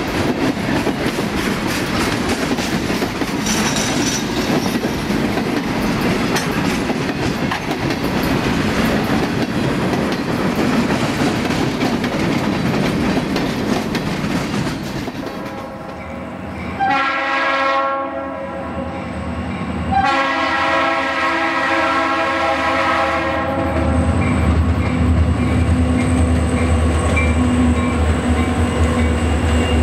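Freight train boxcars rolling past, with a steady rumble and clatter of wheels on rail. About halfway through, a diesel locomotive's multi-tone air horn sounds a short blast and then a longer one, followed by the locomotive's low diesel engine rumble as it comes past.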